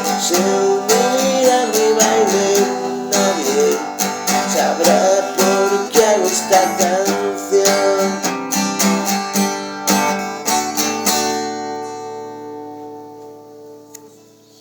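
Acoustic guitar strummed through the closing bars of a song. About eleven seconds in, the strumming stops and a final chord is left to ring and fade away.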